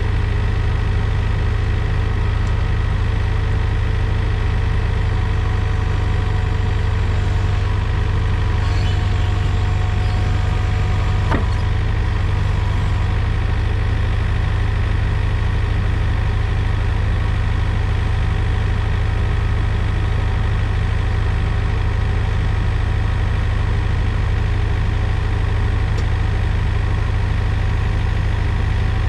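Engine idling steadily, with one short click about eleven seconds in.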